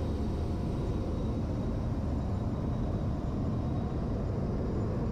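Steady low rumble inside the cockpit of a Tupolev Tu-160 bomber in flight, engine and airflow noise, with a faint steady whine over it.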